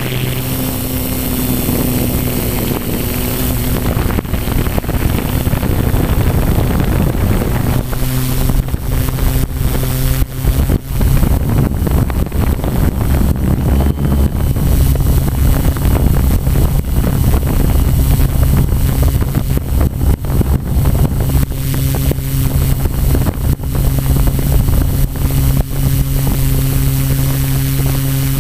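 Multirotor drone's motors and propellers humming steadily, heard through its onboard camera's microphone, with wind buffeting the microphone from about a third of the way in.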